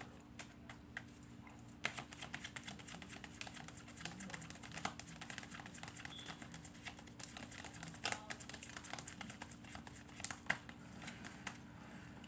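Tarot cards being shuffled by hand: a long run of quick, irregular light clicks and flicks.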